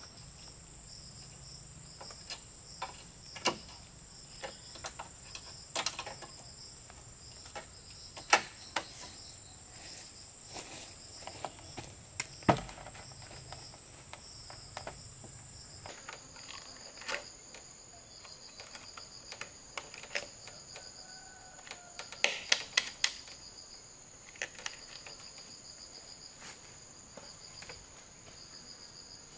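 Steady high-pitched drone of forest insects, with sharp knocks and clacks of bamboo poles being handled and set in place, a quick cluster of them about three quarters of the way through.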